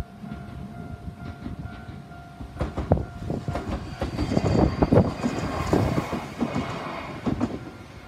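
A Shizuoka Railway electric train passes over a level crossing. Its wheels clack over the rail joints with a rumble, loudest midway. The crossing's warning bell rings steadily at first and is drowned out as the train arrives, and wind buffets the microphone throughout.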